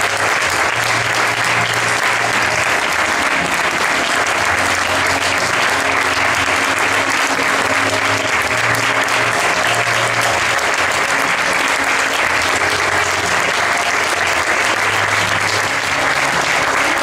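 Theatre audience applauding steadily at a curtain call as the cast takes its bows, with music playing underneath.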